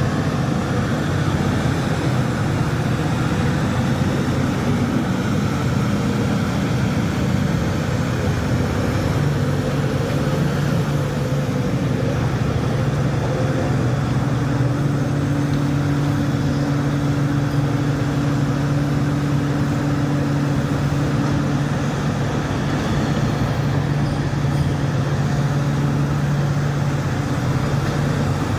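Heavy diesel machinery running steadily: the engine of a large Hitachi hydraulic front shovel working beside a haul truck. A steady low engine hum settles on a held pitch about a third of the way in, with a higher tone joining it through the middle.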